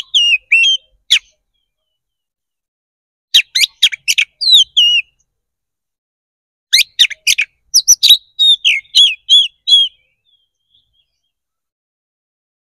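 Oriental magpie-robin singing loudly in three bursts. Each burst is a quick run of sharp notes followed by slurred, swooping whistles, and the bird falls silent a few seconds before the end.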